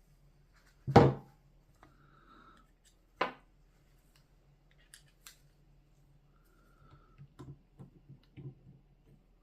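Two sharp metallic clacks about two seconds apart, the first much louder with a brief ring, then a few faint clicks near the end over a low steady hum.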